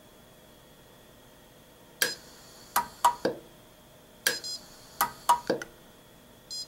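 Orion M-Pulse pulse arc micro-welder firing on a fine thermocouple wire against a stainless steel plate: a series of sharp snaps in two quick clusters, one arc pulse per snap, then a short electronic beep from the welder near the end. The power is not yet set right for this joint.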